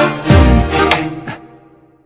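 Background music: a phrase of pitched notes that fades away near the end.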